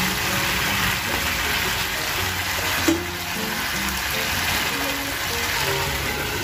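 Chicken pieces frying in ghee and spice paste in an iron kadai, giving a steady sizzle under background music. There is one sharp clink about three seconds in.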